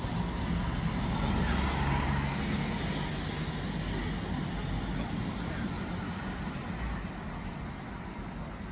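Street traffic: a motor vehicle's engine running over general road noise, loudest a second or two in and slowly fading away.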